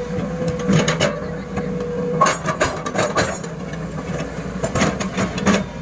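SANY 210C-9H excavator running steadily, with a thin whine that stops about two seconds in. Three bouts of clattering knocks come over it, the busiest a little past the middle.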